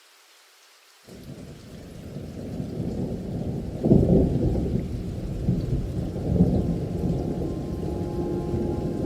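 Recorded rain with thunder rolling in: a faint hiss of rain, then about a second in a low, muffled rumble of thunder that builds, swells loudest around four seconds and rolls on to the end.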